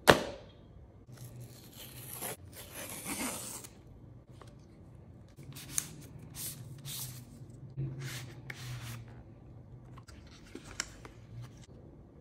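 Cardboard packaging of a Nothing Phone 1 box being handled: a sharp knock as it is set down, then a long tearing rip about three seconds in, followed by short scraping and rubbing strokes and light clicks as the phone and inner pieces are slid out of the card box.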